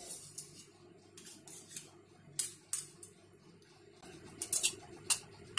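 Metal spoon clicking and scraping against a stainless-steel plate while mixing grated cheese and cheese spread into a sandwich filling: scattered light clicks, coming quicker about four and a half seconds in.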